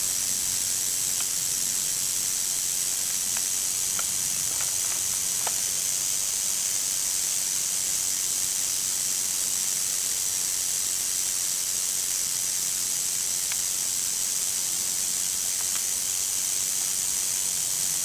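Timber rattlesnake rattling its tail without pause, a steady high-pitched buzz: the defensive warning of a coiled, frightened snake.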